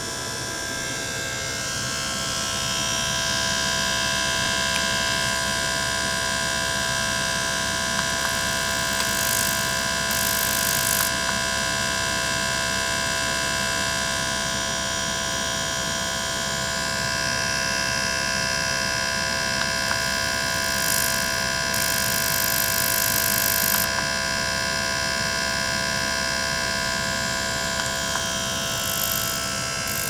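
Small liquid-circulation pump running steadily, pumping water through tubing: a steady motor hum with several constant tones, broken three times by short bursts of high hiss.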